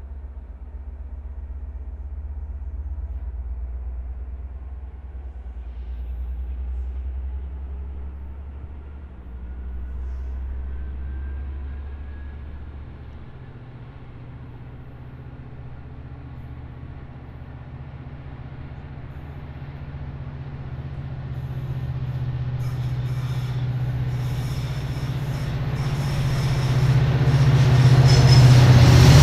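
Amtrak Pacific Surfliner passenger train approaching behind its EMD F59PHI diesel locomotive: a steady low engine rumble that grows louder as the train draws near. A faint wheel squeal comes from the curve.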